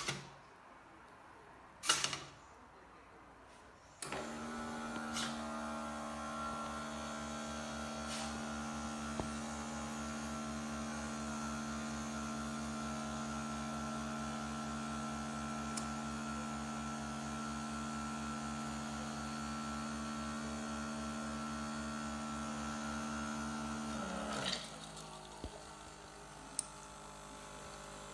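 Two sharp clicks, then the greenhouse window servos run with a steady electric hum for about twenty seconds. The hum stops abruptly and gives way to a lower, quieter hum.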